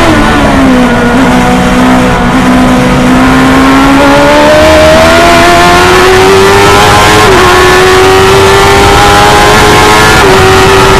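1000cc engine of a Stohr F1000 formula race car, heard onboard at racing speed. The pitch drops sharply at the start as the car slows, then climbs steadily under acceleration, with a brief dip about seven seconds in and another near the end as it shifts up a gear.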